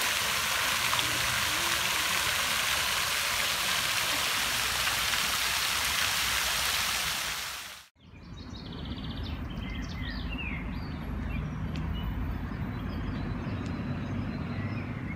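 Water from a tiered park fountain and its jets splashing steadily, then fading out about eight seconds in. After a moment's silence, birds chirp a few times over a low, steady rumble.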